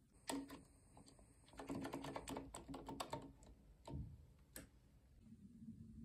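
Faint small plastic clicks and taps, a quick run of them, then two sharper single clicks as a plug adapter is pushed into a wall socket.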